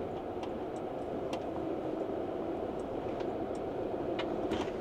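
Camper van driving slowly over a gravel track, heard from inside the cab: a steady hum of engine and tyres with a few faint ticks.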